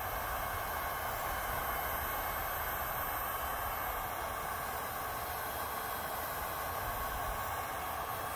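Electric heat gun running steadily, its fan blowing a constant hiss of hot air while it heats a plastic kayak hull.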